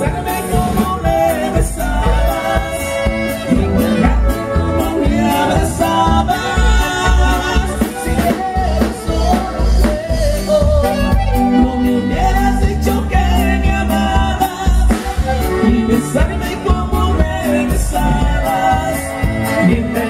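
Live Mexican conjunto band playing a dance tune, loudly amplified, with a singer over a steady pulsing beat.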